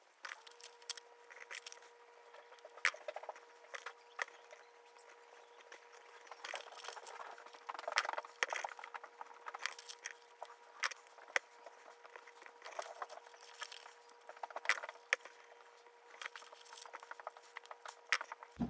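Faint rustling and clicking of stiff paper cut-outs being handled, snipped with scissors and pressed down while gluing, in many short irregular ticks. A faint steady tone sits underneath.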